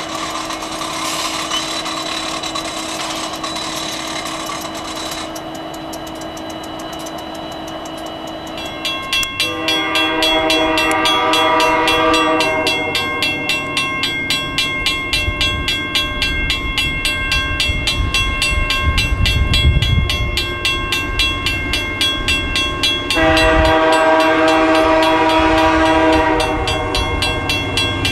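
Diesel locomotives idling with a steady hum. About nine seconds in, a freight train's multi-note horn sounds a long blast, and another one near the end, while the low rumble of the approaching GE AC44-9CW diesel-electric locomotives builds in between.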